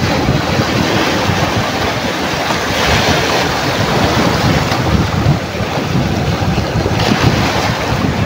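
Small sea waves breaking and washing over shallow rocks, with wind buffeting the microphone.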